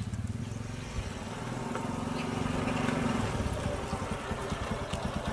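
Motorcycle engine running as the bike rides up. About three seconds in the engine note drops and settles into a slower, even low putter as the bike slows.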